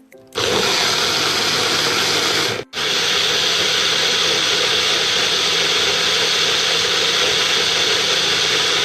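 Electric blender running at full speed, blending chopped carrots, orange and ginger into a thick shake. It switches on just after the start, cuts out for a moment about three seconds in, then runs on steadily.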